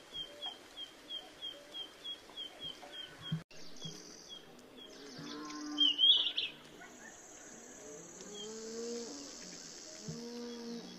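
A small bird chirping over and over, about three short chirps a second, stopping abruptly about three and a half seconds in. Afterwards a cow lows in the background with long gliding calls, and a brief loud sound comes about six seconds in.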